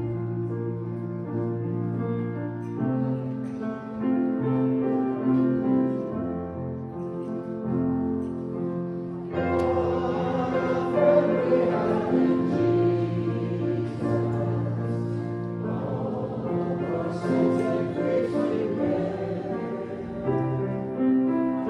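Church hymn music: held keyboard chords, then from about nine seconds in, voices singing along and the sound grows fuller.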